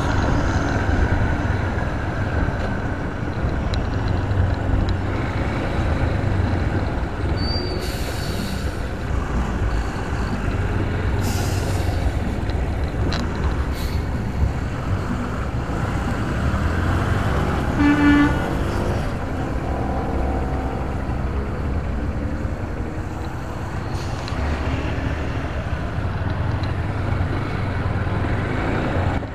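Motorcycle engine running under steady wind rumble while riding in slow traffic behind a box truck. Two short hisses come in the first half, and a vehicle horn gives one short toot about two-thirds of the way through.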